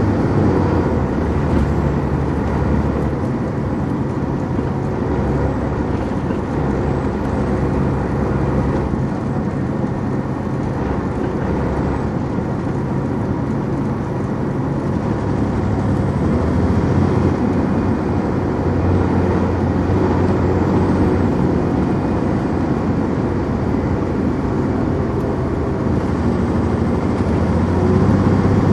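Detroit Diesel Series 60 diesel engine of a 2002 MCI D4000 coach running while the bus drives, heard from on board. Its hum steadily changes pitch and loudness a few times.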